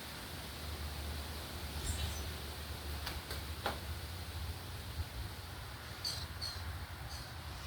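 Birds chirping: a few short, high chirps about two seconds in and again near the end, over a steady low rumble, with a couple of faint clicks in the middle.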